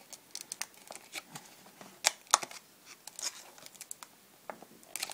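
Clear plastic packaging crinkling and clicking irregularly as hands pry it open and peel off a sticker, with a couple of sharper snaps about two seconds in.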